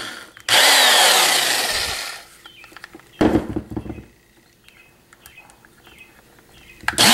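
Motor of a repaired Craftsman 3/8-inch corded drill running again after a broken wire was reconnected. It whirs up about half a second in, then is let go and winds down with a falling whine. A short blip follows about three seconds in, then a few small clicks, and it runs up again near the end.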